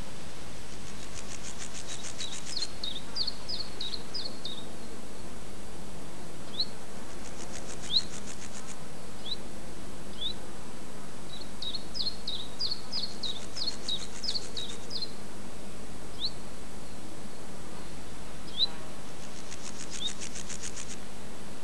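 Small birds chirping, with quick trills of notes and single calls, and bursts of high, rapid insect chirring every few seconds, over a steady hiss and faint low hum.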